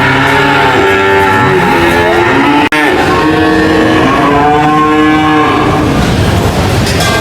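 Cattle mooing: long, loud, drawn-out calls one after another, broken by a sudden brief cut in the sound about two and a half seconds in.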